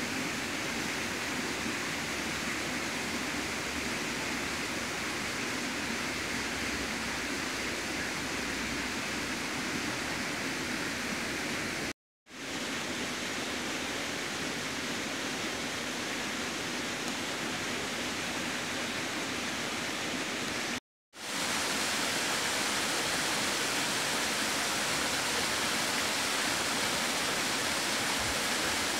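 Steady, even rushing noise with no distinct events, dropping out completely twice for a moment.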